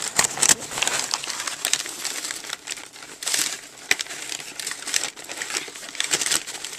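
Crumpled newspaper packing rustling and crinkling as it is handled in a cardboard shipping box, with scattered light clicks and taps.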